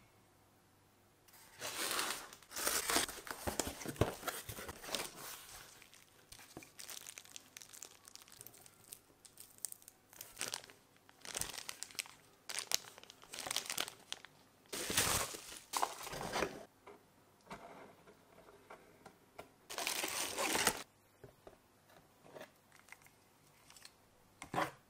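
Clear plastic bags crinkling and rustling as parts are handled in a cardboard box. The sound starts about a second and a half in and comes in irregular bursts with short pauses.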